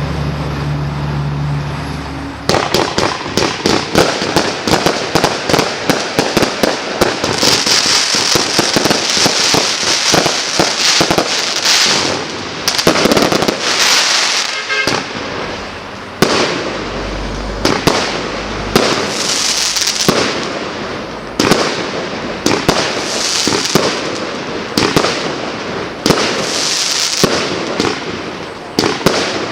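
Klasek 'King of Fireworks' 223-shot firework cake firing, with rapid volleys of shots and bursts that crackle. It starts about two and a half seconds in after a low steady hum, then fires almost continuously in fast waves.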